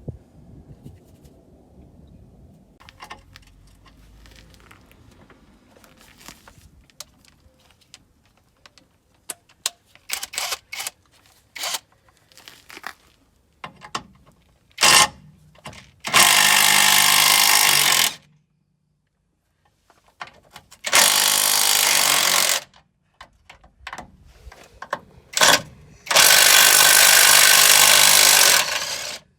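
Power impact wrench run in three loud bursts of two to three seconds each, with short blips between them, after a stretch of light metallic clicks and taps from tools being handled.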